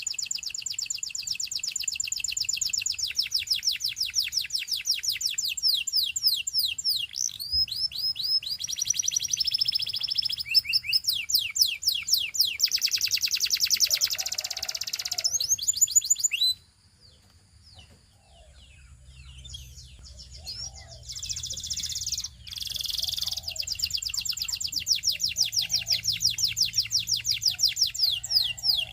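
Canary singing: long, fast trills of rapidly repeated high notes, changing from one trill to the next. A little past the middle the song stops for a few seconds with only a few soft chirps, then the trilling starts again.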